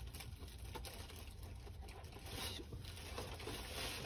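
Faint wet brushing and light pattering of a paintbrush scrubbing paint off a soft-vinyl kit part soaking in a tub of lacquer thinner, with a couple of brief swishes.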